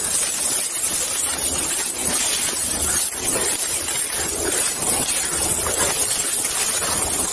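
Steady rushing and rustling on a body-worn camera's microphone, like wind noise, as the wearer walks through forest leaf litter following a dog on a leash.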